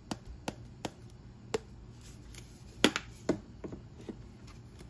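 Spice shaker of cayenne pepper being shaken, giving a string of short sharp clicks: a few close together at first, then sparser, with the loudest pair about three seconds in.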